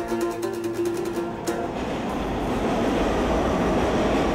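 A held musical note stops about a second and a half in, giving way to a subway train running, its rumble growing a little louder.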